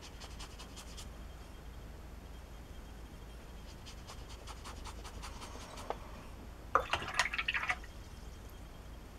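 Faint brushing of a watercolour brush across paper, then about seven seconds in a brief burst of splashing and tapping as the brush is rinsed in a water jar.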